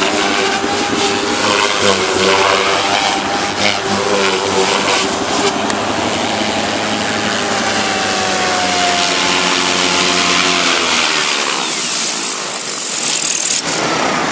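Devil 420 electric RC helicopter flying: motor and main rotor whine, rising and falling in pitch as it manoeuvres. About eleven seconds in the power drops and the rotor winds down with a falling whine.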